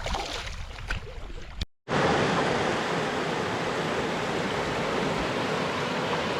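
Wind buffeting the microphone with a few faint knocks, then, after a sudden cut under two seconds in, the steady rush of river water flowing.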